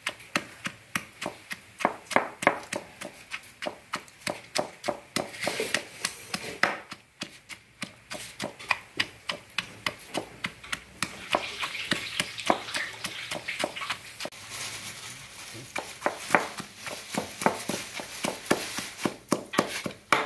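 Stone pestle pounding chillies, shallots and garlic in a granite mortar (cobek): a steady run of wet, dull knocks, about three strokes a second. For a few seconds past the middle the strokes run together into a rougher scraping sound.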